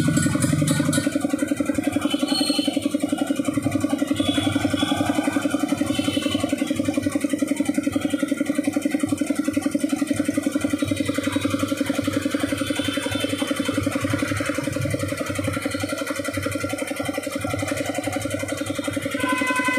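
Twin-cylinder reciprocating air compressor pump, driven by an electric motor, running steadily with a fast, even pulse.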